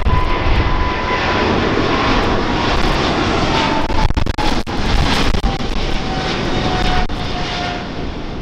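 Boeing 777-300ER's twin turbofans running loud as the airliner passes low overhead on a go-around, with a thin whine sliding slowly down in pitch. The sound cuts out briefly a few times: interference in the recording.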